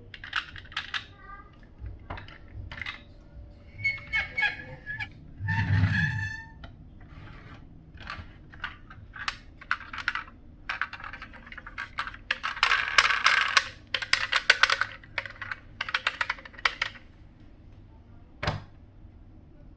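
Glass marbles rolling and clattering through a wooden marble run of Cuboro blocks and wooden rails: irregular clicks and rattles, densest and loudest about twelve to fifteen seconds in. A short pitched sound stands out about six seconds in.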